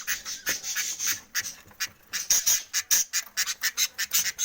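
A flock of budgerigars chattering and chirping together in an aviary: a dense, unbroken stream of rapid, high, squeaky chirps.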